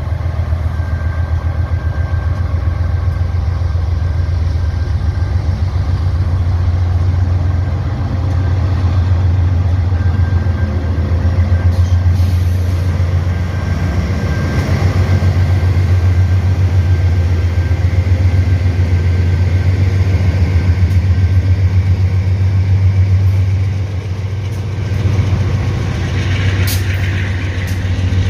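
Several diesel-electric freight locomotives in multiple passing slowly, their engines running with a steady deep drone. A brief higher-pitched sound rises over it near the end.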